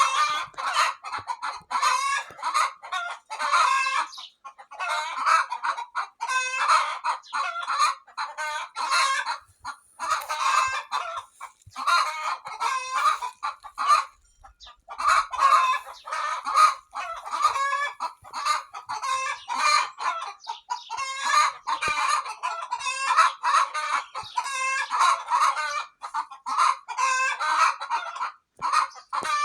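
Hens clucking and cackling almost without pause, many short calls overlapping. This is the cackle hens make around laying an egg.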